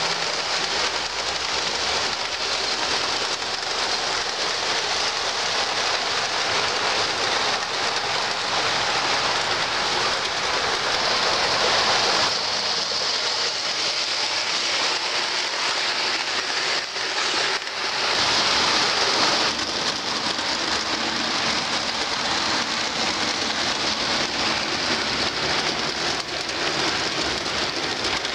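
O scale two-rail model trains rolling along the track: a steady rattle of metal wheels over rail and rail joints, swelling and easing a little as cars pass close.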